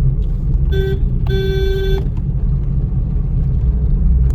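Steady low rumble of a car driving slowly over a rough, broken road, with a vehicle horn sounding twice on one steady pitch: a short toot just under a second in, then a longer one lasting under a second.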